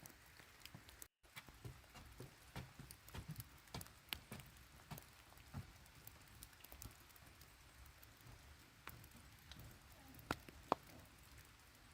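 Raindrops tapping irregularly on a surface, quiet overall, with a brief cut to silence about a second in and two louder drops near the end.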